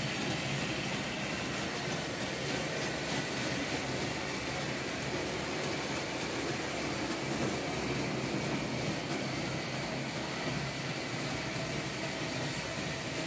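Märklin H0 model trains running on a layout: a steady rolling rumble of the trains on metal track. A few light clicks come right at the start.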